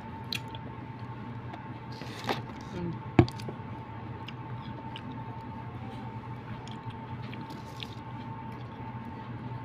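Steady electrical hum with a few small clicks and quiet chewing, and one sharp knock about three seconds in as something is set down on the table.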